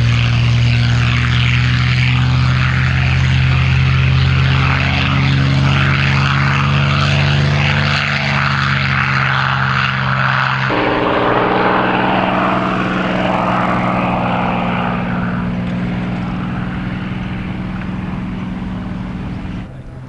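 A North American P-51D Mustang's Packard-built Merlin V-12 engine and propeller running loud and steady. The engine note changes suddenly about halfway through and falls away sharply near the end.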